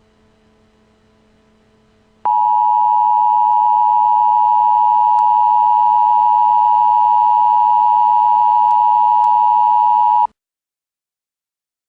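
Emergency Alert System two-tone attention signal: a loud, steady dual tone that starts abruptly about two seconds in after a faint hum, holds for about eight seconds and cuts off suddenly, announcing a tornado warning.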